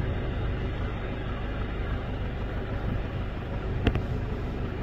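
Steady noise of a Boeing 777's jet engines as the airliner moves along the runway, with one short click about four seconds in.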